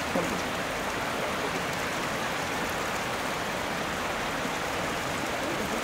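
Steady rush of flowing water in a hot-spring pool.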